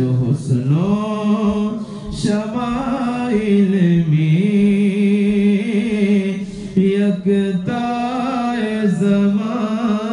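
A man singing an Urdu naat unaccompanied into a microphone, holding long notes with slow, ornamented melodic turns and brief pauses for breath.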